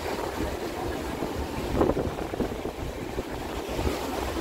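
Wind buffeting the microphone outdoors, a steady uneven rumble over a noisy background, with one brief louder sound a little under two seconds in.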